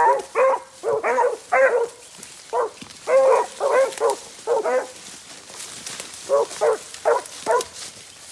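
Beagle hound giving tongue in short, choppy barks, in three quick runs that stop near the end: a hound opening on the rabbit's scent line.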